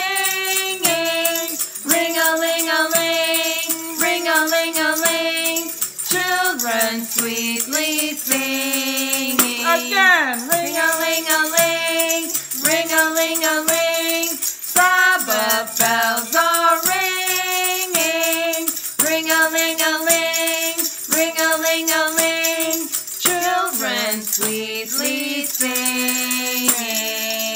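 Voices singing a children's song, accompanied by small hand bells and a tambourine shaken in a continuous jingle.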